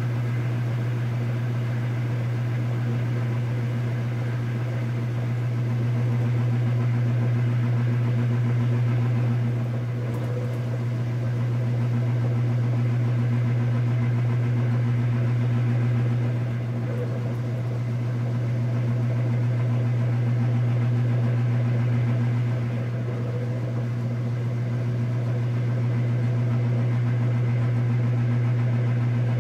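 KitchenAid Superba KAWS850LT1 direct-drive top-load washer agitating a full load: a steady motor hum, the sound swelling and easing about every six to seven seconds.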